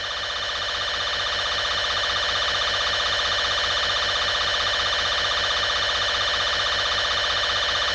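Emergency broadcast warning alarm: a steady, multi-pitched alarm tone with a fast flutter, swelling over the first couple of seconds and then held without a break.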